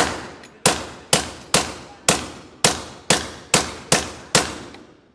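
A .300 AAC Blackout AR-style rifle firing ten semi-automatic shots at a steady pace of about two a second. Each shot rings out with echo off the walls of an indoor range.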